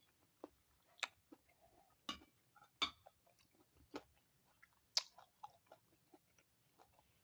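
A person chewing and biting fruit with the mouth close to the microphone: faint, wet crunching and clicking, roughly one bite a second.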